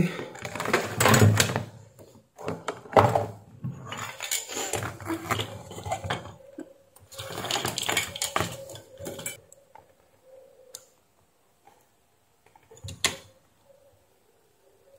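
Handling noise on a workbench: multimeter test leads and a circuit board being moved and set down, clattering and rustling in irregular bursts for about the first nine seconds. A sharp click follows about thirteen seconds in, with a faint steady hum underneath.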